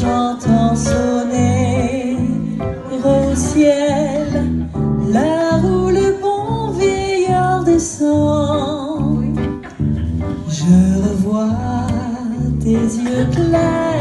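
A woman singing into a microphone over a small live band, electric bass guitar and keyboard, amplified through PA speakers; the bass plays a steady pulsing line under her melody.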